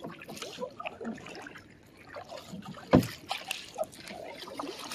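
A kayak being paddled: quiet water sounds and small scattered clicks, with one sharper knock about three seconds in.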